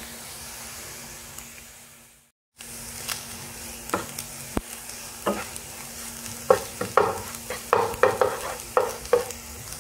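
Egg, chicken and carrot sizzling in a nonstick frying pan. The sound cuts out for a moment about two and a half seconds in. From about four seconds in, a wooden spatula scrapes and stirs through the pan, scrambling the egg, with scraping strokes that come more often towards the end.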